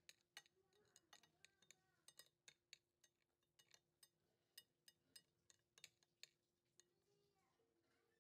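A metal spoon and chopsticks clink and scrape against a porcelain plate in light, irregular clicks as the last bits of salad are picked up. The clicks stop shortly before the end.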